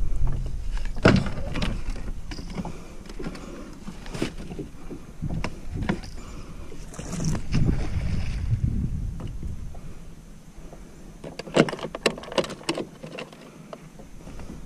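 Scattered knocks and clicks of a fish and gear being handled on a plastic fishing kayak, over a low rumble. A quick cluster of sharp knocks comes about twelve seconds in.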